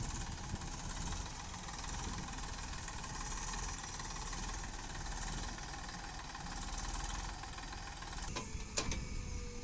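Diesel engines of a JCB backhoe loader and a Massey Ferguson tractor running steadily at low revs. Two sharp clicks come near the end.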